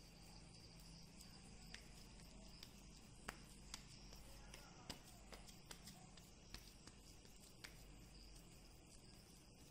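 Near silence: faint steady hiss with a few soft, scattered clicks from oiled hands pressing and patting a ball of vada dough flat.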